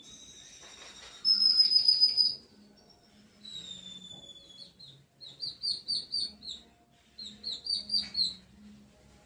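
Songbird singing: several phrases of clear whistled notes and fast runs of repeated chirps, the loudest phrase just after a second in.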